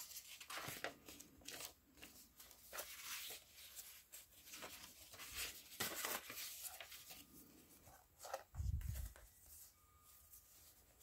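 Paper pages and inserts of a handmade hardcover junk journal rustling and swishing softly as they are turned and handled, in short irregular crinkles. A dull low thump comes about three quarters of the way through.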